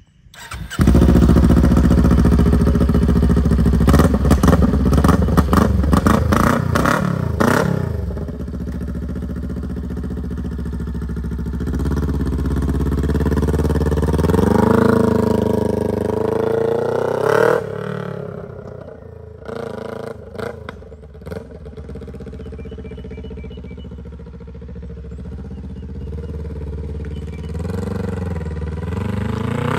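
Kawasaki Ninja 400's parallel-twin engine starting about a second in and being revved sharply a couple of times. It then pulls away, rising in pitch through the gears before dropping off and running quieter in the distance. Near the end it grows louder again as the bike comes back.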